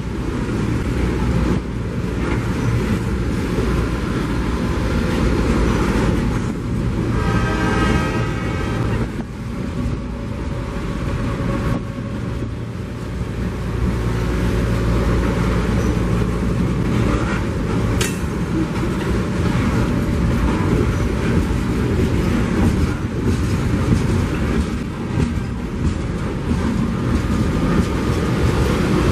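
Freight train with diesel locomotives passing: a steady low rumble of engines and rolling cars, with a brief higher-pitched tone about seven seconds in.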